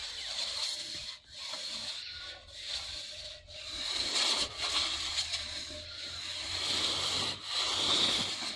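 Hands scraping and rubbing over loose soil in uneven strokes, working scattered tobacco seed into the seedbed. A steady high-pitched hiss runs behind it.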